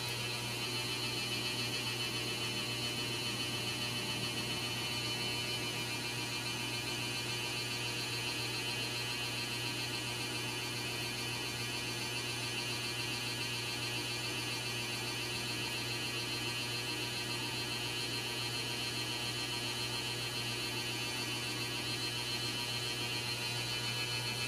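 Steady low hum with a higher whine above it, unchanging in pitch and level.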